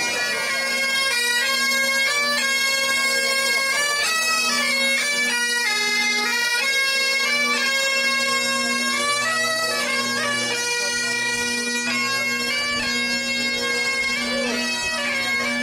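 Bagpipes and a bombarde playing a marching tune together over the bagpipes' steady drone, the melody moving note to note above it.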